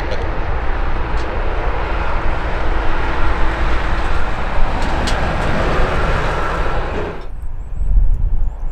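Boeing 737-700's CFM56-7B jet engines during the landing rollout, a steady broad rush that cuts off suddenly about seven seconds in, leaving only a low rumble.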